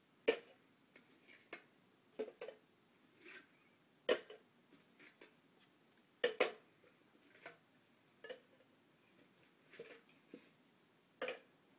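Plastic party cups clicking and knocking as they are lifted off a stack and set down one by one onto a cup pyramid: light irregular clicks about once a second, with a few sharper knocks.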